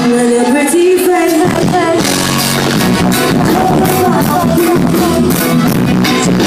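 Live reggae band with a woman singing lead. The bass and drums drop away for the first second and a half under the voice, then the full band comes back in about two seconds in.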